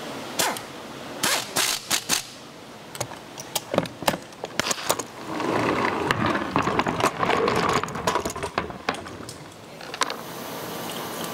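Metal tools and parts clicking and clinking against a 125cc motorcycle engine's aluminium crankcase during assembly: scattered sharp knocks, with a denser patch of clatter from about five to nine seconds in.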